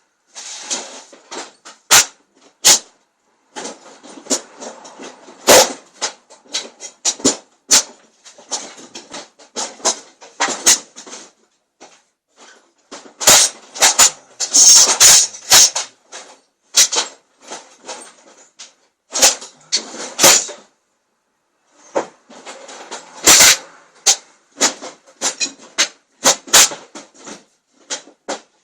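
Hand tools clicking, rattling and scraping against metal as the main bearing cap bolts of a Ford Kent crossflow engine are run down and tightened: irregular sharp clicks and knocks, with a couple of short pauses.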